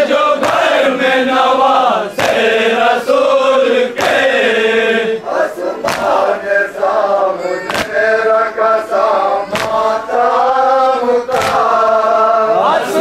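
A crowd of men chanting a nauha (mourning lament) in unison, with sharp rhythmic chest-beating (matam) strikes keeping the beat about every two seconds.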